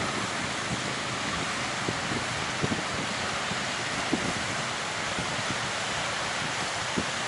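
Steady rush of ocean surf and strong wind, with wind buffeting the microphone in a few brief low thumps.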